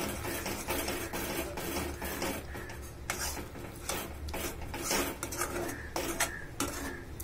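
Spatula scraping and stirring thick, reducing milk round a metal kadhai, a steady run of scrapes against the pan: the milk is being cooked down into khoa, stirred constantly to keep it from sticking and burning.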